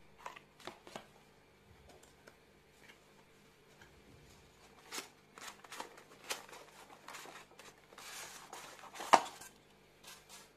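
A makeup box and its packaging being handled and opened: scattered small clicks and taps, a stretch of rustling near the end, and one sharper click about nine seconds in.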